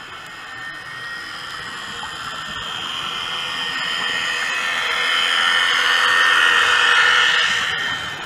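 A motorboat's engine and propeller passing overhead, heard underwater as a whining drone. It swells gradually to its loudest about two-thirds of the way in, then fades quickly near the end.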